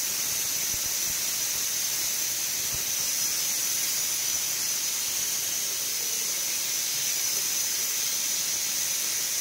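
Steady hiss of a kadai of chicken curry boiling hard on a gas stove.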